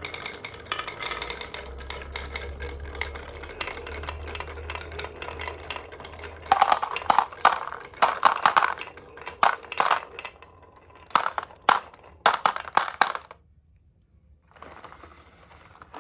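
Marbles rolling along a marble run with a steady rumble, then a busy stretch of sharp clicks and clacks as they knock against the track and each other. The sound stops briefly, and fainter rolling starts again near the end.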